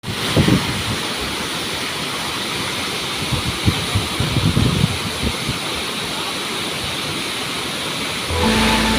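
Steady rushing roar of a waterfall, with scattered low thumps. Music starts just before the end.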